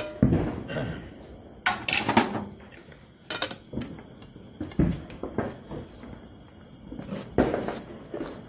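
Spatula scraping and knocking against a steel kadai as thick cashew dough is stirred and folded, in several separate strokes. Crickets chirp steadily behind.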